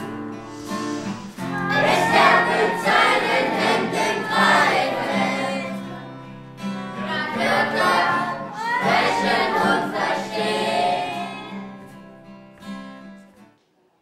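A group of children and teenagers singing together over held accompanying notes, in two sung phrases, fading out near the end.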